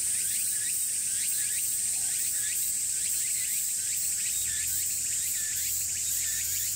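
Cicadas singing: a steady high shrill drone, with a second repeating call a few times a second.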